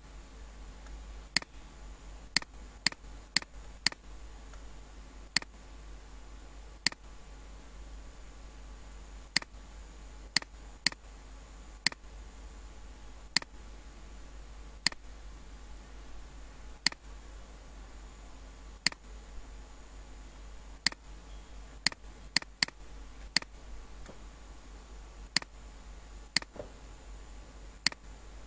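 Computer mouse button clicking: single sharp clicks every second or two at an uneven pace, sometimes two in quick succession, over a faint steady low hum.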